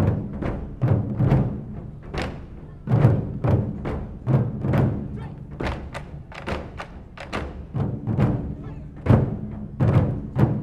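Japanese taiko drums struck hard with sticks by a group of drummers: deep booming strokes, about two to three a second in a driving, uneven rhythm, with sharper higher strikes between them.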